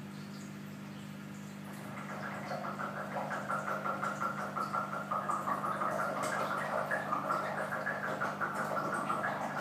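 Reef aquarium equipment running: a steady low hum, joined after about two seconds by a louder, rough, fluttering whoosh that lasts to the end.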